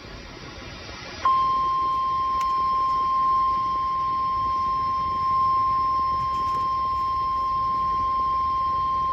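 NOAA Weather Radio 1050 Hz warning alarm tone: a single loud, steady high tone that comes on abruptly about a second in, after a moment of radio hiss. It signals that a warning message is about to follow.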